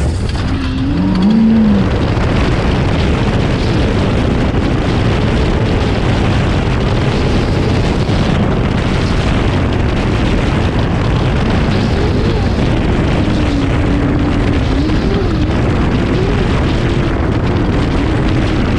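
A steady, loud rumble of engine and wind noise, with an engine note that rises and falls in pitch about a second in and again through the second half.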